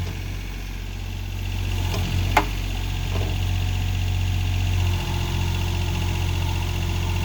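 John Deere backhoe's diesel engine running steadily, getting a little louder about a second and a half in. A single sharp knock sounds about two and a half seconds in.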